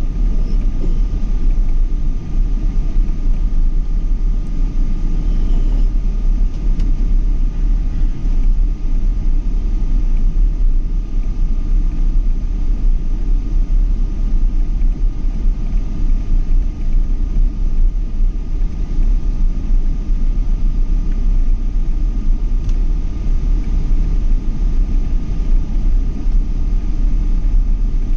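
Boeing 777 jet airliner running steadily: a constant low rumble with a faint, steady high whine above it.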